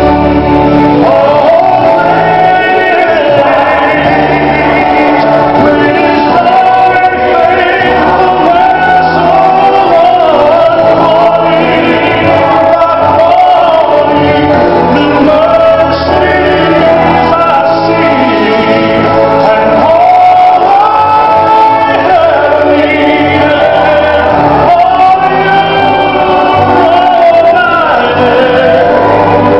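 A man singing a gospel solo into a microphone, holding long notes over instrumental accompaniment with sustained bass notes.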